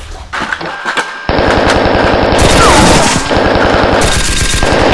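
Rapid automatic machine-gun fire sound effect, starting about a second in after a few scattered knocks and going on as a fast, even stream of shots.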